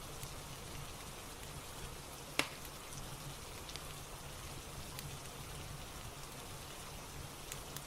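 Steady rain ambience with a soft fireplace crackling under it: a few sharp pops, one louder about two and a half seconds in.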